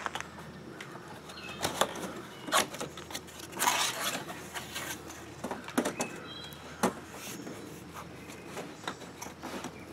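Cardboard box being opened and handled: rustling of the flaps and a metal breaker-panel enclosure sliding out against the cardboard, with a few scattered knocks and one longer rustle about four seconds in.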